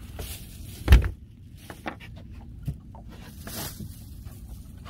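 Fishing gear being handled in a small boat: one loud knock about a second in, then a few lighter knocks with short rustling and scraping.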